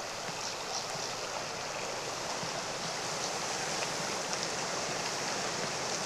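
Shallow freestone mountain stream running over stones: a steady rushing of water, with faint short high ticks now and then.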